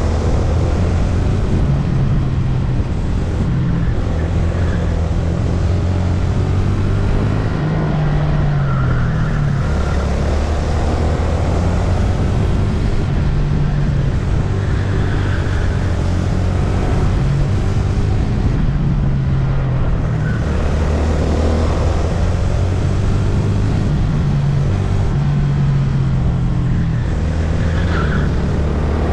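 Onboard sound of a VT250 rental go-kart's engine running hard on track, its pitch rising and falling again and again as it accelerates down the straights and lifts for the corners.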